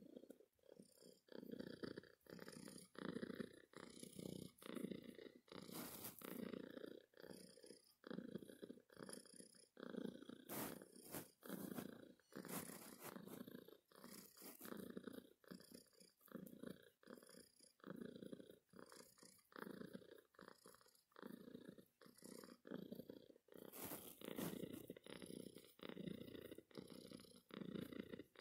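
Tortoiseshell cat purring steadily, the purr swelling and fading with each breath about once a second.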